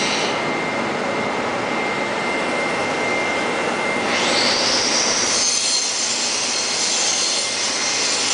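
Cincinnati Gilbert Model J CNC horizontal boring mill running, a steady rushing machine noise with a thin high tone. About four seconds in, a high whine rises and then holds.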